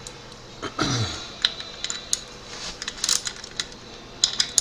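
Irregular light metallic clicks and taps of hand tools on a motorcycle engine's clutch assembly as it is being taken apart.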